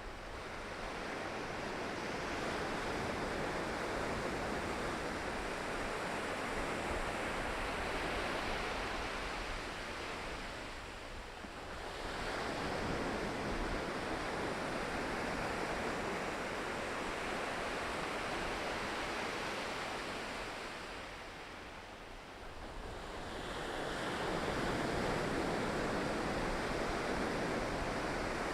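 Ocean surf breaking and washing in a steady rush. It eases off twice, about eleven seconds in and again a little after twenty seconds, and each time surges back up as the next waves come in.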